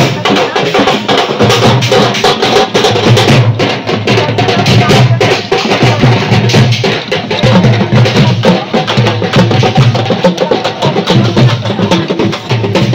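Loud hand drumming from a procession drum band, a dense, steady beat of many strokes a second, with crowd voices underneath.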